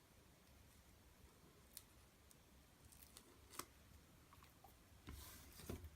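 Near silence with a few faint clicks and, near the end, a short rustle of card and craft materials being handled on a tabletop.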